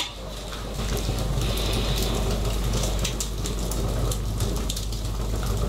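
Wood fire burning in a mangal (grill), with a steady hiss and many small crackles and pops.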